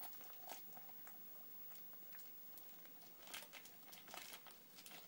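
Dog chewing and gnawing: faint, scattered crunches and clicks, busier a little past the middle.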